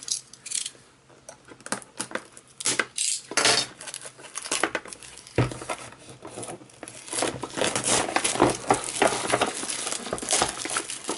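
Unboxing a pack of USB cables: packaging crinkling and rustling as it is opened and handled, with scattered clicks and knocks, sparse at first and busier from about halfway through.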